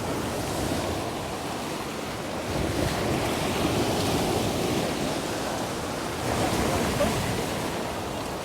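Sea waves breaking and washing up on the shore, with wind buffeting the microphone. The surf swells louder about two and a half seconds in and again about six seconds in.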